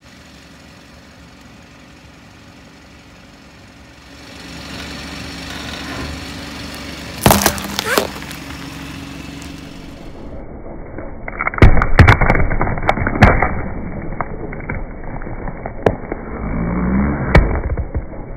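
Things being crushed under a slowly rolling car tyre: a steady rumble of the car creeping forward, two sharp cracks midway, then a pumpkin splitting apart under the wheel in a burst of loud cracks and crunches, with a few more near the end.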